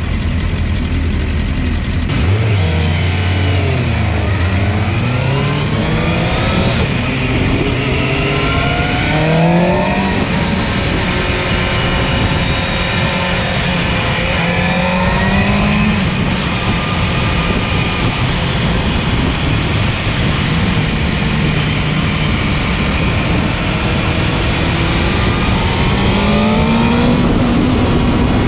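Motorcycle engine heard from a camera mounted on the bike, revs climbing and dropping back again and again as it changes gear on a lap, under a steady rush of wind noise.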